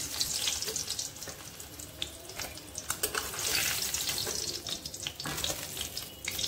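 Hot mustard oil sizzling in a metal kadhai as fried boiled eggs are lifted out with a steel spoon, the spoon clicking and scraping against the pan several times.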